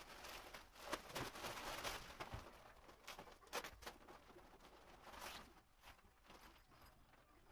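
Faint rustling and crinkling of clear plastic packaging as a folded softbox is pulled out of it, dying down about five and a half seconds in to softer handling of the softbox's fabric with a few light clicks.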